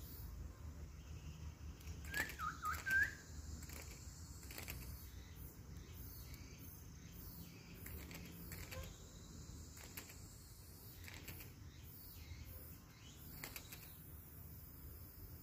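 Bird song in forest: a short phrase of loud whistled notes sliding down and up, about two seconds in. Scattered faint clicks and chirps follow over a faint steady high tone.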